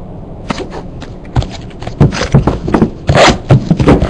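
Trading-card packaging being torn open and handled: a rapid run of scraping and crinkling noises that starts about half a second in and gets louder from about two seconds in.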